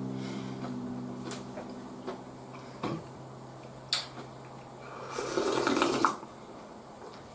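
Broth slurped from a soup bowl: one loud noisy sip lasting about a second near the end, after a few sharp clicks. A steady low hum of several tones runs underneath and fades out about halfway.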